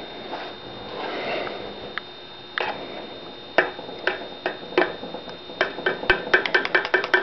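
Metal spoon clicking against a plastic cup while diatomaceous earth filter aid is stirred into maple syrup. Scattered taps at first, then a quick steady run of clicks, several a second, near the end.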